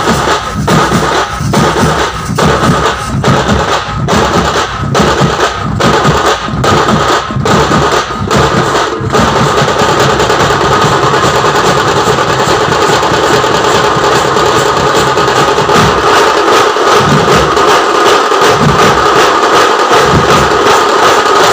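A street drum band of large stick-beaten drums playing loud, fast rhythms. Evenly spaced accented strokes give way, about nine seconds in, to a dense unbroken roll.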